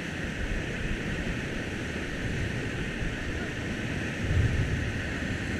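Whitewater of a river rapid rushing steadily around the raft, with wind rumbling on the microphone, loudest about four and a half seconds in.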